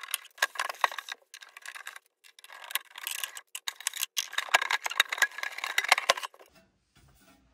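Sharp metallic clicks, rattles and scraping as a screwdriver takes out the case screws of a Sanyo Plus D45 cassette deck's wood-grain cabinet and the case is handled. The sounds stop about six seconds in.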